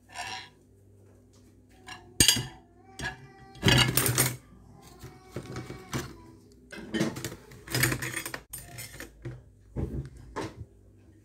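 Dishes clinking and clattering as plates are handled in a plastic dish rack: a series of separate knocks, over a low steady hum.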